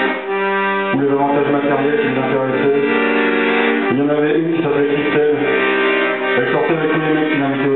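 Accordion playing held chords that change every couple of seconds.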